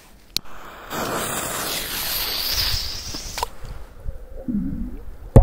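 Grand Mouse firecracker fuse hissing for about two seconds, followed near the end by a single loud, sharp bang.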